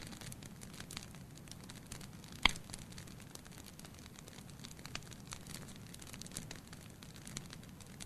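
Burning logs in a fireplace crackling: many small snaps scattered over a low steady rumble, with one loud pop about two and a half seconds in.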